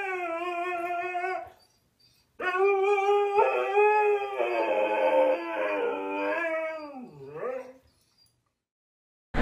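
A husky howling: one howl stops about a second and a half in, and after a short gap a second, longer howl wavers in pitch, dips low near its end and stops well before the end.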